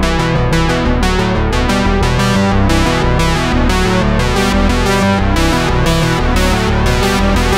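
Background music: a keyboard and synthesizer track with a steady beat.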